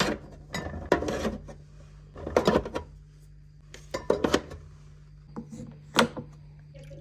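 Household objects being handled and set down: five short clusters of knocks, scrapes and clatter, over a steady low hum.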